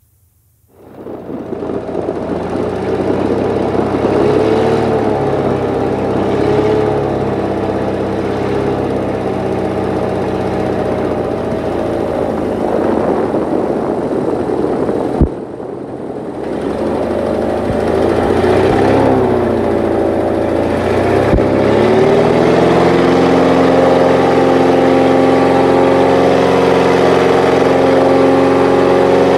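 Airboat engine and propeller running under way, starting suddenly just after the start. The pitch rises and falls with the throttle, then holds steadier and louder for the last third. A single sharp click and a brief drop in level come about halfway.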